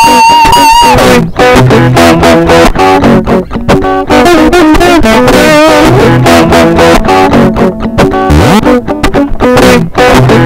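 Psychedelic rock music: an electric guitar plays a lead line over bass guitar. It opens with a held, wavering high note that ends about a second in.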